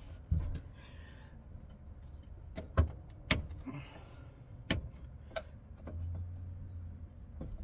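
Hand tools at work on a fridge's mounting screws: scattered sharp clicks and knocks, about half a dozen, with brief scraping between them.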